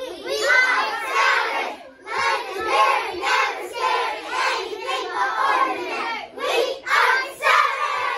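A group of young children cheering and shouting together, in a run of repeated loud calls.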